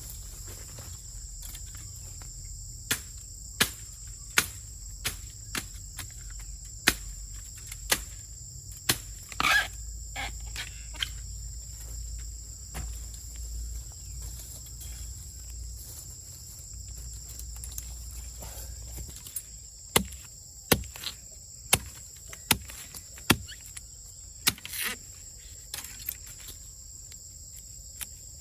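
Steady high-pitched chorus of insects such as crickets or cicadas, with two runs of sharp knocks, about one every second or less, one run a few seconds in and another past the middle.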